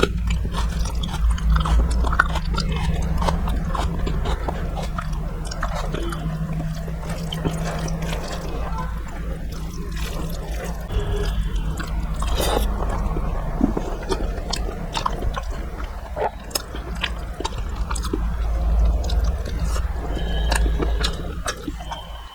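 Close-miked eating sounds: a person chewing a meal of puti fish curry and rice, with many small irregular wet mouth clicks. A steady low hum runs underneath.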